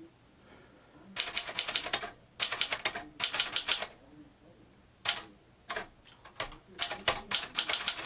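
1949 Moskva Model 2 manual typewriter being typed on: quick runs of key strikes, the typebars snapping against the platen, in bursts of under a second each, with a pause of about a second near the middle.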